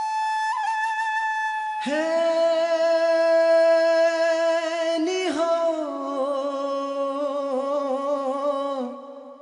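Music: a lone instrument melody, then about two seconds in a male singer comes in on a long held 'he…' that slides down about five seconds in and carries on into 'ni hau', fading just before the end.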